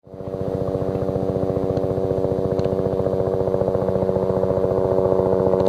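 Bell 206 Jet Ranger helicopter in flight on approach, its rotor beating fast and evenly, about a dozen beats a second, over a steady turbine whine. The sound comes in suddenly and grows slowly louder as the helicopter nears.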